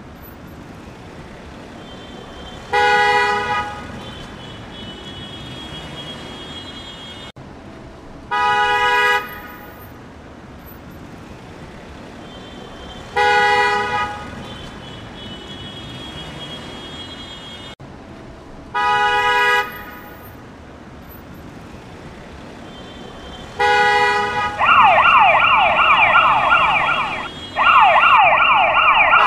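Short horn-like toots at a steady pitch, each under a second, one about every five seconds over a low steady hiss. Near the end comes a loud rapid yelping siren, fast repeated rising sweeps, in two stretches with a brief break between them.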